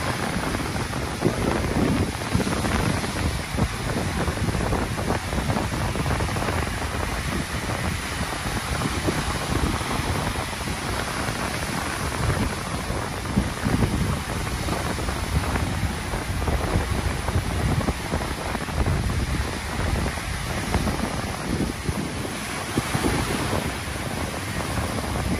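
Sea surf breaking and washing up onto a sandy beach, a steady rush of water with wind rumbling on the microphone.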